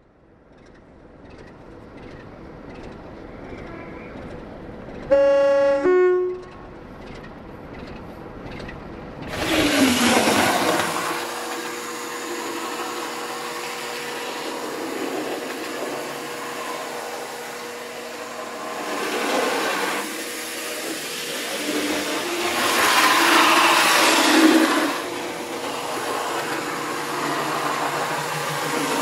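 A two-note diesel locomotive horn sounds about five seconds in, stepping down from a higher note to a lower one. From about nine seconds a diesel locomotive engine runs with a steady hum that swells louder a few times.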